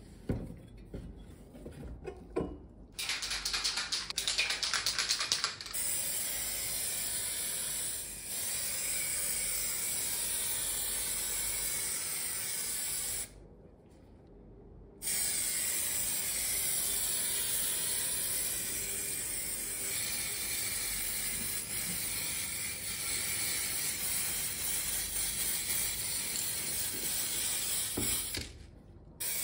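Aerosol spray-paint can spraying in long steady hisses, with one break about halfway through and another just before the end. A few seconds of rapid rattling come about three seconds in, before the first long hiss.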